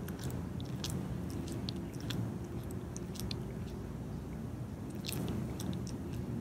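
A cat chewing on a rat, with irregular wet crunches and sharp clicking bites as it works the carcass between its teeth. Under them runs a steady low background noise.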